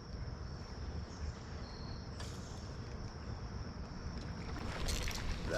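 Quiet pondside ambience: a steady high insect drone with low rumble underneath, and a short burst of noise near the end.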